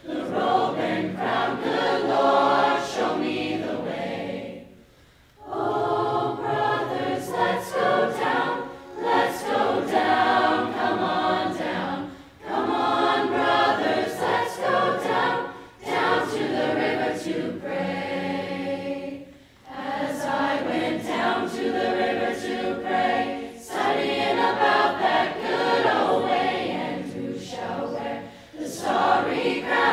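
Mixed-voice choir singing in phrases, broken by short pauses for breath, the longest about five seconds in.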